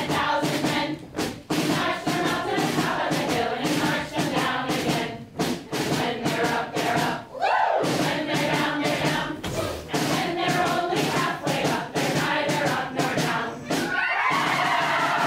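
Live theatre music: many voices singing in chorus over heavy, repeated drum thumps. A single voice or note rises and falls about seven seconds in, and a rising slide comes near the end.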